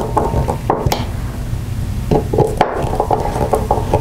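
Screwdriver tightening small screws in a hard plastic encoder housing: scattered clicks and light knocks of the tool against the screws and housing, a few of them close together about a second in and again past the halfway point.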